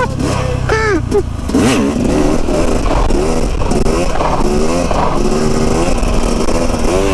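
Dirt bike engine running hard while riding, its pitch rising and falling over and over as the throttle is worked.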